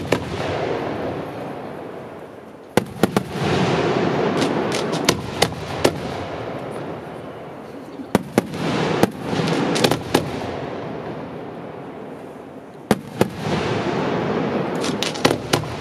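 Aerial firework shells bursting overhead in volleys of sharp bangs every few seconds, each volley followed by a long fading rumble.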